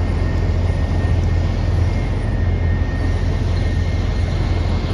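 Heavy industrial machinery running, a steady loud low rumble with an even hiss over it.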